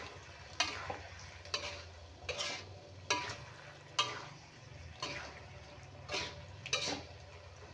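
Metal spatula stirring and scraping a stir-fry of shrimp, carrots and green beans around a metal wok, about one stroke a second, with the food frying underneath.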